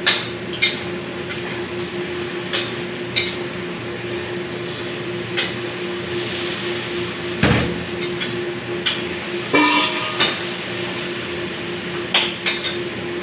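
Metal spatula knocking and scraping in a wok during stir-frying: a dozen or so sharp clacks and one ringing clank about ten seconds in, over a steady hum and the hiss of frying.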